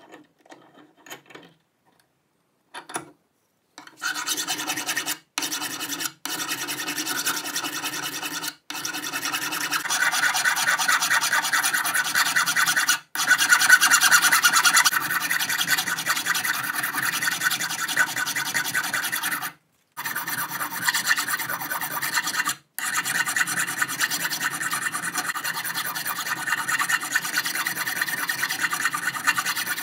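Flat hand file rasping back and forth across the outer edge of a stainless steel nut clamped in a bench vise, filing it down toward a round ring. The filing is continuous, broken by a few sudden short gaps. It follows a few faint light metal clicks at the start as the nut is set in the vise.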